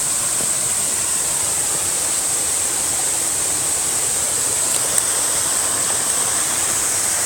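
Waterfall pouring steadily into a pool: a constant rushing hiss of falling water.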